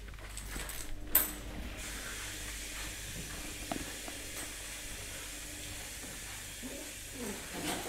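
Steady hiss with scattered light clicks and scuffs from Maltese puppies tussling over a rope on a tile floor; one sharper click about a second in.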